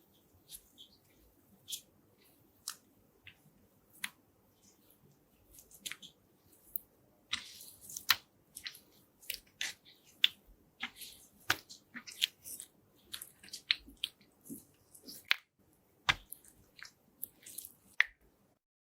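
Slime being pressed and squeezed by hand, giving short sticky pops and clicks. They are scattered at first and come quickly one after another from about a third of the way in.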